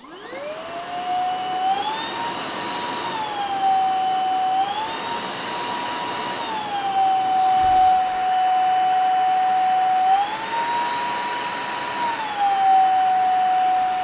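Vistefly V10 Pro cordless stick vacuum's 250 W brushless motor spinning up to a steady high whine. It steps up to a higher pitch and back down three times as it is switched between its two power levels.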